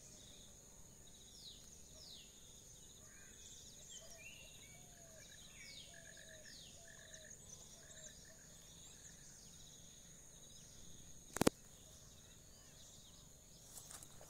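Faint forest ambience: a steady high-pitched insect drone, with birds calling repeatedly in short falling chirps and quick trills. A single sharp knock about eleven seconds in is the loudest sound.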